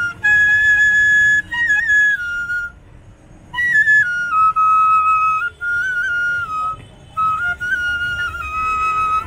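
Bamboo bansuri flute playing a slow melody of held notes with small ornamental turns between them, in phrases with a breath pause about three seconds in and a shorter one near seven seconds.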